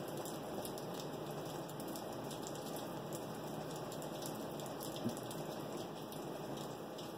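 Restored 1930s GE 10-inch oscillating fan with aluminum blades running, a steady, even rush of air.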